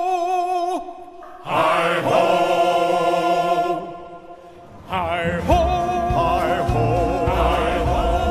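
Music: a choir of voices holding long wordless notes, broken by two short pauses. A low rumble joins near the end.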